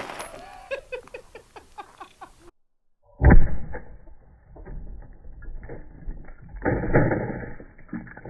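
Pieces of a shattered concrete cylinder clattering and settling just after an AR-15 shot burst it. After a brief break, a more muffled recording of the same shot follows: a heavy thump about three seconds in, then a dull blast near seven seconds as the rifle is thrown off the stand.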